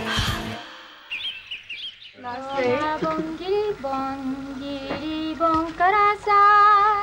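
Background music stops abruptly, and after a brief high warble a woman's voice sings long, wordless notes with a strong wavering vibrato. The pitch climbs in steps and the voice gets louder near the end.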